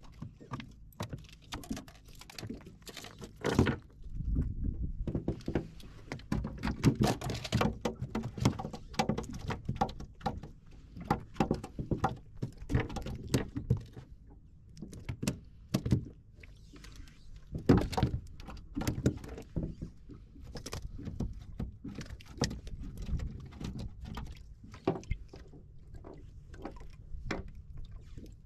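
Irregular clicks, knocks and rustling from a fish grip and hands unhooking small horse mackerel from a sabiki rig. The handling comes in busier stretches with sharp taps between.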